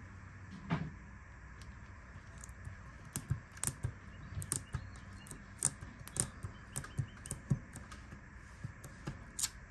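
Irregular light taps and clicks of fingertips pressing and working a cling rubber stamp down onto a sheet of paper on a hard desktop, to print with it. The taps come in a scattered run from about three seconds in.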